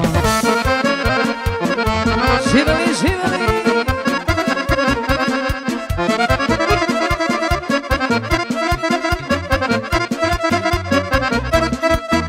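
Wedding band playing an instrumental break in a Balkan folk song. An accordion leads, with saxophones, over a steady fast beat.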